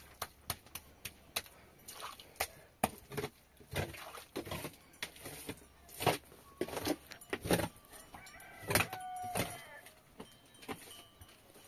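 Wood being struck again and again with sharp, irregular knocks. A drawn-out animal call comes in about eight seconds in and lasts a second or so.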